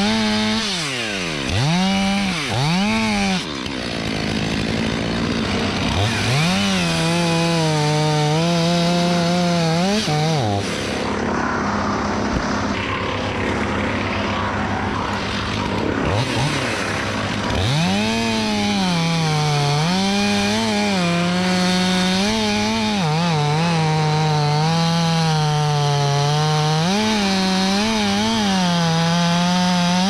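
Two-stroke chainsaw cutting through dead oak. The engine revs up and down at first, then holds at full speed and drops a little under load during long cuts. It eases off for several seconds midway before cutting again.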